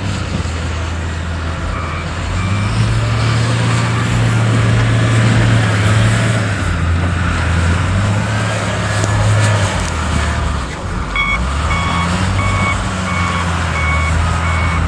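A heavy snow-removal vehicle's engine running with a low drone that rises and falls, while its reversing alarm beeps. The beeps are faint a couple of seconds in and then come steadily and clearly from about eleven seconds in.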